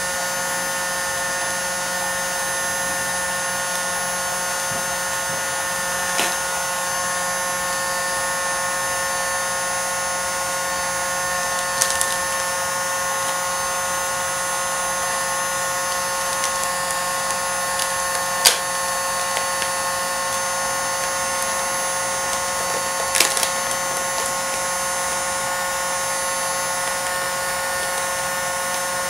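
Electric heat gun running steadily, its fan motor giving a constant whine. A few sharp clicks and taps from handling the vinyl-wrapped grille.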